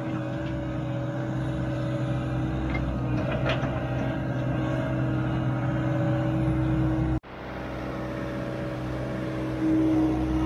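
John Deere excavator's diesel engine and hydraulics running steadily as it digs wet mud. The sound drops out for an instant just after seven seconds, then carries on and gets louder near the end.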